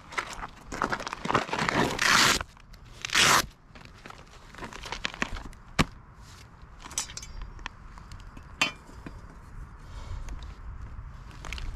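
Hook-and-loop straps on a soft ballistic vest ripped apart: a long rasping tear about a second in and a shorter one about three seconds in, then scattered small clicks and handling knocks.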